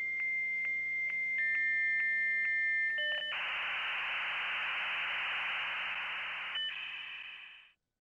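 Dial-up modem handshake. A steady high answer tone with regular clicks about twice a second, then a second lower tone joins. About three seconds in, a loud hiss of data noise runs for roughly three seconds, and a few brief tones follow before it cuts off.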